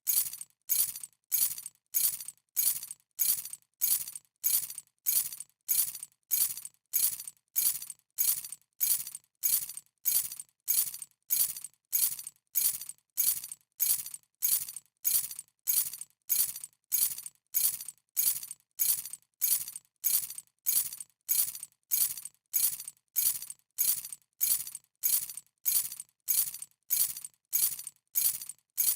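A bunch of keys dropped onto a hard surface, a bright metallic jingle, repeated over and over at an even pace, about one and a half times a second.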